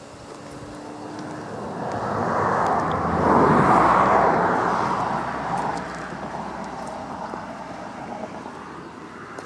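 A vehicle passing by: a rushing noise that swells over a few seconds, peaks about a third of the way in, then slowly fades away.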